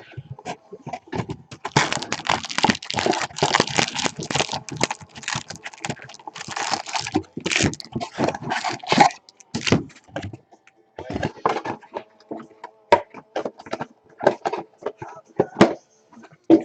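Crinkling, crackling and tearing of trading-card packaging, plastic wrap and pack wrappers, torn open and handled in quick uneven bursts with short pauses between.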